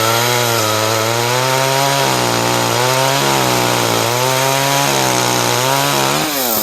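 Chainsaw running under load while cutting tree limbs, its speed sagging and recovering several times as it cuts. About six seconds in the pitch rises sharply and the sound breaks off.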